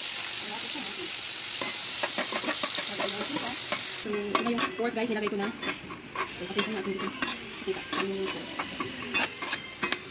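Garlic, onion and tomato slices sizzling in an aluminium frying pan for about four seconds; then a metal spoon stirring chopped pork in the pan, with quick scrapes and clinks against the metal.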